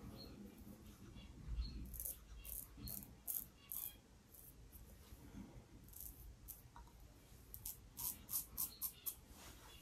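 Double-edge safety razor blade scraping through lathered stubble: short, faint scratchy strokes in two quick runs of about three strokes a second.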